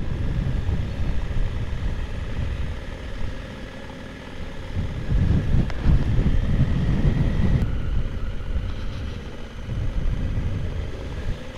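Motorcycle running under way, engine rumble mixed with wind noise over the microphone; it eases off a few seconds in, then picks up again.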